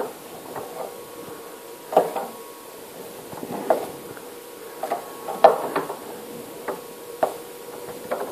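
Pillar drill running with a steady hum while the bit is hand-fed into the workpiece, with irregular short clicks and squeaks from the cut.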